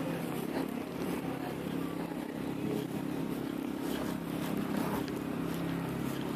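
An engine running steadily, a low even hum with a few faint clicks over it.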